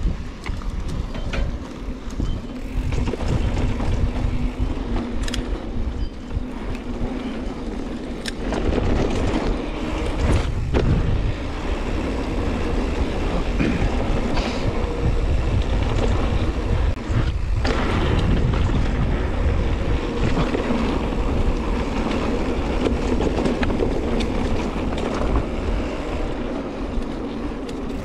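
Mountain bike ridden along a dirt trail: a steady rush of wind on the microphone and tyre noise, with a few sharp knocks from the bike going over bumps.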